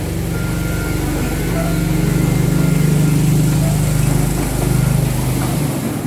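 Small engine of a Wulai scenic-train rail cart running steadily, a low drone that swells and then eases.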